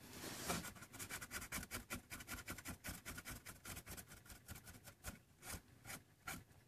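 Young Maine coon kittens scrabbling about on a terry towel: a fast, irregular run of small, faint scratches and rustles from their claws and paws.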